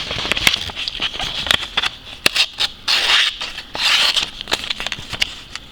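Serrated butterfly knife blade sawing through a sheet of paper in several short strokes, with scattered sharp clicks and paper rustle; the dull serrated edge tears the paper rather than cutting it cleanly.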